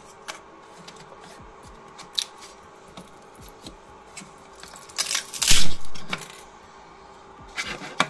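Clicks and knocks of hard plastic as a hand handles a freshly 3D-printed part on the printer bed. The loudest is a clatter about five and a half seconds in, with more clicks near the end, over a faint steady hum.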